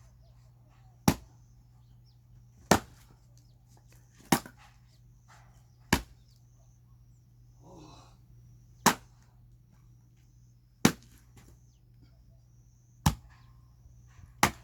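Axe blows splitting firewood: eight sharp strikes on wood, coming about every one and a half to two seconds, with a longer pause near the middle.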